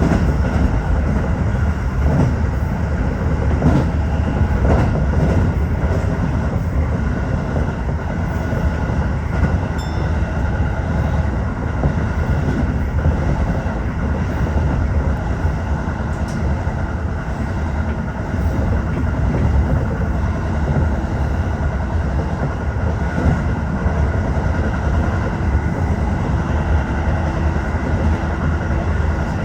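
Tokyo Metro 15000 series electric train running at speed between stations: steady wheel-and-rail running noise with light clickety-clack, heard from inside the front car.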